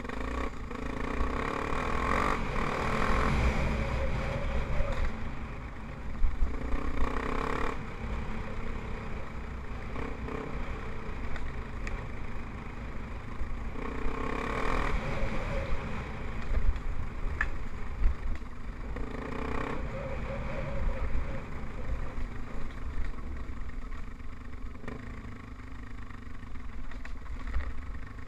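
Yamaha TT-R250 trail bike's single-cylinder four-stroke engine running on a dirt-track descent, the throttle opened in short bursts every few seconds between quieter stretches.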